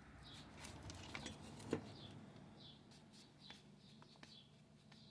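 Faint clicks and taps of small parts being handled, the loudest a single click a little under two seconds in, over a bird's short high chirp repeating roughly every half second to second and a faint steady hum.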